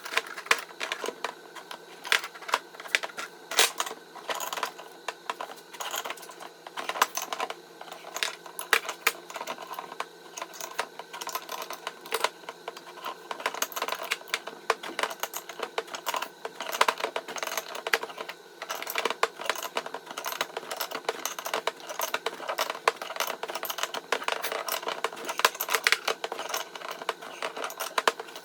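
Rapid, irregular clicking and clinking of small hard objects.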